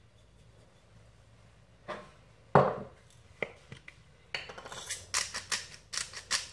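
A metal spice shaker knocks down onto the counter, then a glass pepper container is worked over a bowl in a fast run of gritty clicks, about five a second, through the last two seconds.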